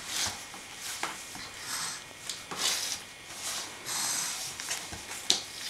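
Plastic bubble wrap being handled and crumpled: bursts of rustling and crinkling, with a couple of sharp clicks.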